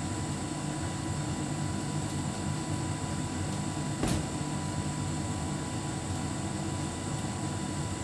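Hotpoint heat pump tumble dryer running, a steady mechanical hum with a few faint steady tones. A single sharp knock comes about halfway through.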